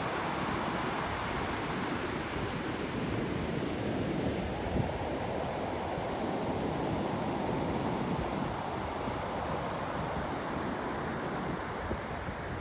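Ocean surf washing onto the shore in a continuous, even rush of breaking waves.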